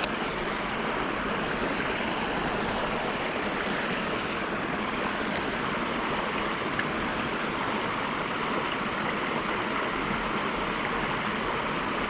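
Water of a small creek rushing steadily.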